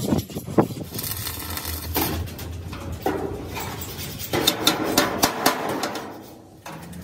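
Irregular knocks and clatter, busiest about four and a half to five and a half seconds in, cutting off abruptly near the end.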